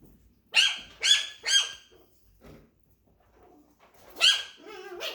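Chihuahua puppy yapping: three quick high-pitched yaps about half a second apart, then another yap about four seconds in that trails into a short wavering whine.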